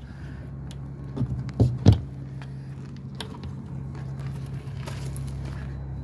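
Footsteps on gravel with a few sharp knocks, the loudest about two seconds in, over a steady low hum.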